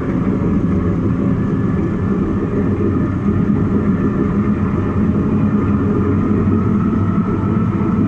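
Caterpillar bulldozer's diesel engine running steadily under load while the blade pushes dirt, heard from inside the cab, with a faint steady whine over the low engine sound.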